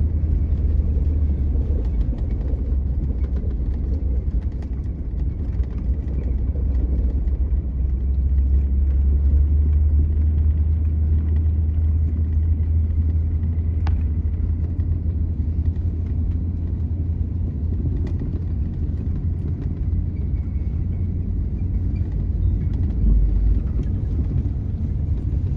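Truck on chained tyres driving over a snow-covered road: a steady low rumble of engine and tyres.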